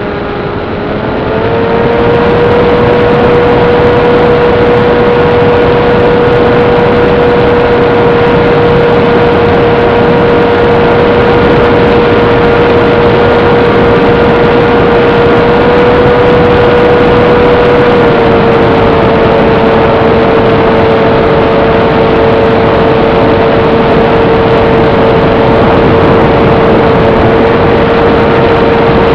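Brushless electric motor and propeller of a small EPP FPV plane (Turnigy 2822 motor, 7060 slow-fly prop) whining steadily in flight, under heavy wind rush on the onboard microphone. The whine rises in pitch and level about a second in and drops slightly in pitch a little past halfway.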